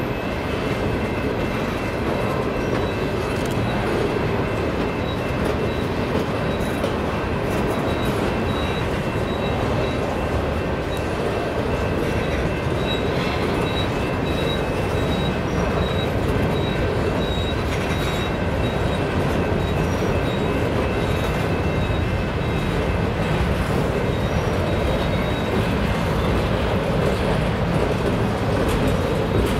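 Empty covered hopper cars of a freight train rolling past on steel rails: a steady rumble of wheels on track, with a faint high wheel squeal coming and going.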